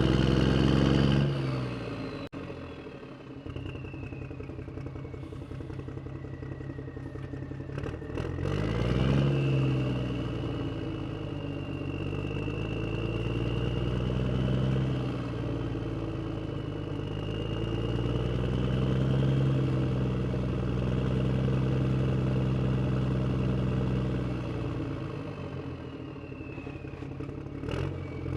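Huina radio-controlled toy construction vehicles running: a motor sound that rises and falls in pitch as they speed up and slow down, with a thin high whine gliding alongside. It drops sharply just after the start and swells again around a third and two thirds of the way through.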